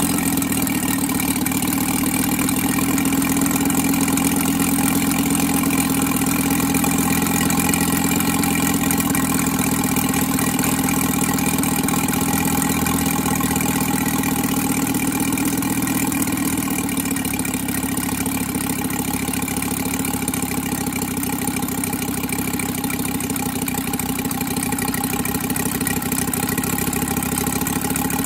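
UMS 75cc five-cylinder radial gas engine turning a Biela 22x10 three-blade propeller, running steadily. Its note eases slightly about two-thirds of the way through.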